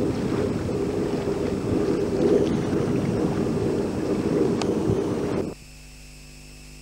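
Wind blowing over the microphone, a steady low rushing noise. It cuts off suddenly about five and a half seconds in, leaving a faint steady electrical hum.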